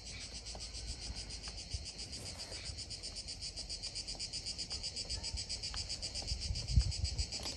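A steady, high, finely pulsing drone of insects, with a few faint clicks and a couple of low knocks near the end as the bolts of a plastic tapping saddle are tightened by hand on a polyethylene pipe.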